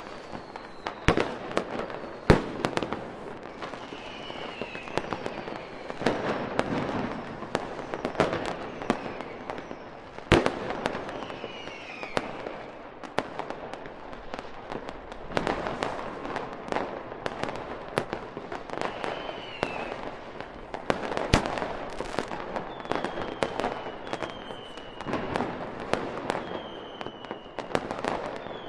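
Fireworks display: sharp bangs every few seconds over continuous crackling, with short falling whistles now and then and a run of them near the end.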